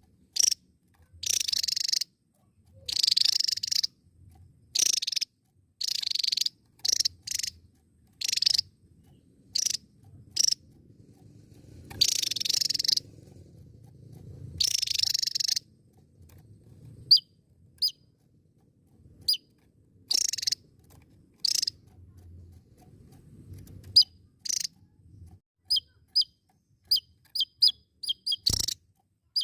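Javan tesia singing: repeated bursts of rapid, scratchy warbling, each half a second to a second long, broken up by short sharp chirps that come thick and fast near the end.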